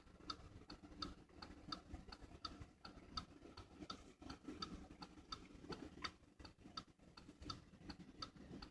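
Faint, even ticking, about three ticks a second, over a low hum.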